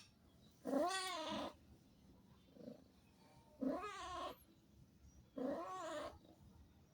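Kitten meowing three times, each call just under a second long and rising then falling in pitch.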